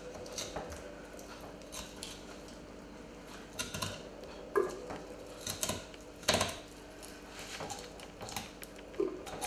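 Knife cutting a fillet away along a sea bass's backbone on a plastic cutting board: irregular scrapes and light clicks of the blade on bone and board, a few sharper ones near the middle.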